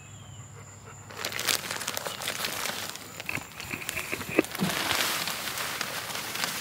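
Plastic potting-soil bag crinkling as it is handled, starting about a second in, then loose potting soil pouring out of the bag into a plastic wheelbarrow tub with a crackly rushing hiss that swells toward the end.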